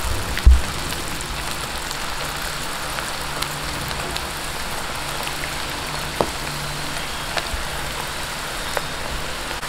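Kikiam (squid-and-shrimp dough sticks) deep-frying in very hot oil in a pan: a steady sizzle with a few small pops. A low thump sounds about half a second in.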